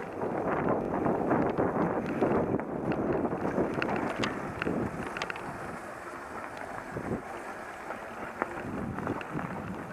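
Mountain bike rolling fast down a dirt forest trail: tyre rumble over the ground with scattered clicks and rattles from the bike, and wind buffeting the microphone throughout.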